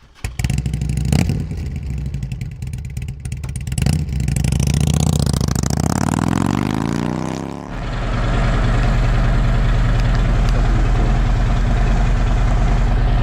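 Harley-Davidson motorcycle engine running, revving up with a rising pitch for a few seconds, then dropping abruptly into a steady low idle about eight seconds in. Two sharp knocks sound in the first four seconds.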